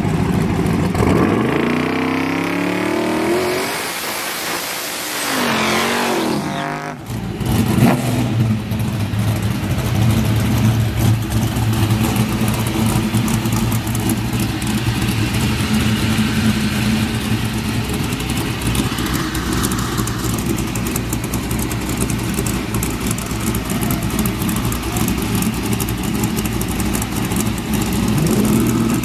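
A drag-racing vehicle accelerating hard, its engine pitch climbing in several rising sweeps over the first seven seconds. After that, a race pickup's engine idles steadily for the rest of the time.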